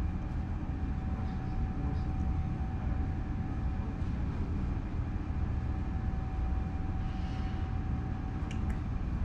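Steady low mechanical rumble with a faint constant high tone running through it.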